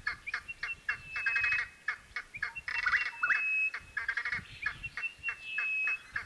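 Repeated bird calls: phrases of quick chattering notes, each ending in a long, steady, high whistle, coming again every second or two.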